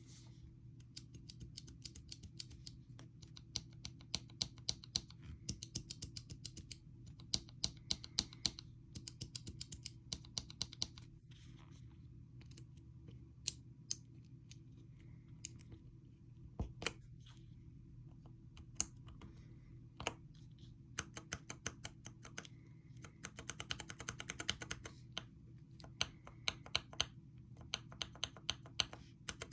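Typing on a mechanical keyboard with tactile switches (lubed Glorious Pandas or Cherry MX Ergo Clears): runs of quick keystrokes broken by short pauses, over a faint steady low hum.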